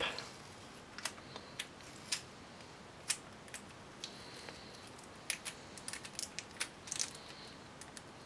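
Faint, irregular small clicks and crackles of sealing tape being peeled back from a laptop's cooling fan and heatsink assembly as the parts are handled by hand.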